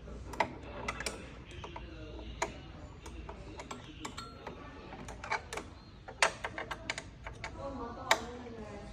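Irregular metallic clicks and knocks of hand tools, a hex key and socket wrench, working against the screws and metal parts of a ball machine while a fastening is loosened. There are a few sharper knocks about half a second in, at two and a half seconds, around six seconds and about eight seconds in.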